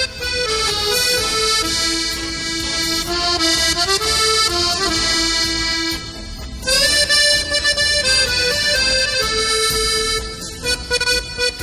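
Background music: an accordion playing a slow melody of long held notes.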